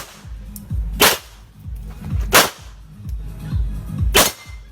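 Three 9mm Glock pistol shots fired one at a time during a timed course of fire, about a second and a half to two seconds apart, each a sharp crack with a short echo. Background music with a low beat plays under them.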